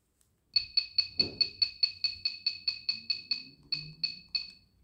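70mai Dash Cam Lite beeping on each button press as the system time is stepped forward: a rapid run of short, identical electronic beeps, about five a second, spacing out slightly near the end.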